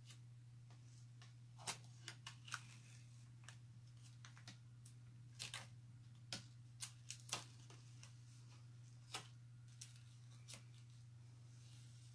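Faint, scattered crinkles and ticks of a Chalk Couture adhesive silkscreen transfer being peeled off a chalkboard by hand after chalk paste was applied, over a steady low hum.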